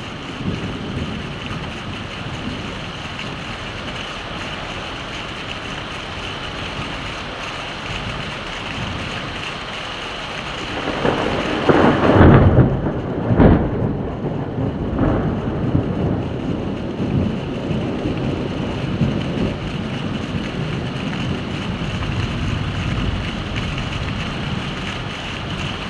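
Heavy rain falling steadily, with a roll of thunder that builds about eleven seconds in, peaks in two loud claps a second or so apart, and then rumbles away under the rain.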